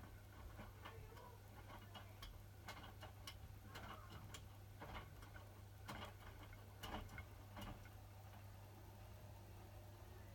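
Hotpoint WMFUG 942 washing machine running a Cotton 60 wash: faint, irregular clicks and taps over a steady low hum.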